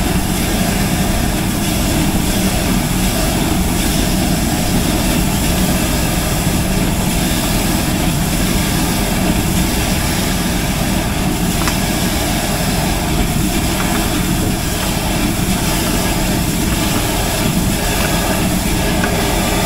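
Engine-driven high-pressure sewer jetter running steadily and loudly while its jetting hose is worked down the drain through grease deposits.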